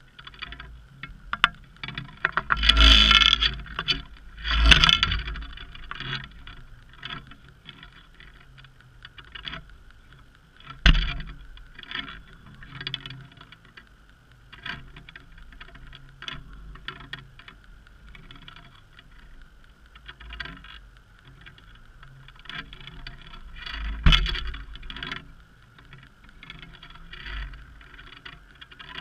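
Muffled underwater sound heard through a GoPro's waterproof housing mounted on a halibut spreader rig: irregular clicks and knocks from the rig and housing, with a few louder thumps, over a faint steady hum.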